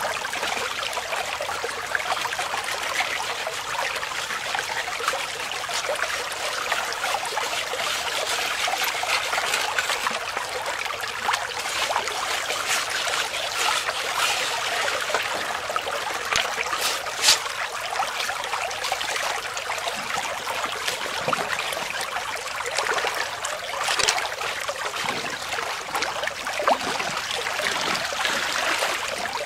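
Shallow creek water running steadily over and around a Bazooka gold trap sluice set in a small rock-and-log dam, a continuous trickling rush. A few short sharp clicks stand out partway through.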